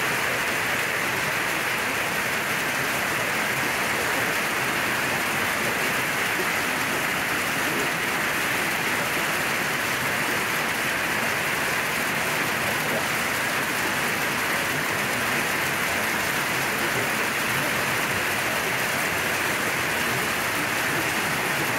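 Pea-sized hail and rain pelting a metal carport roof overhead: a loud, steady, dense patter with no let-up.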